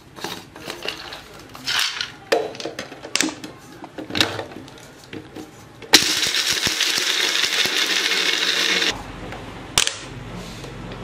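Kissen personal blender grinding almonds into powder: its motor starts abruptly about six seconds in, runs loudly and steadily for about three seconds, and cuts off. Before it, almonds clatter into the plastic jar with handling clicks, and a single click follows as the jar is lifted off.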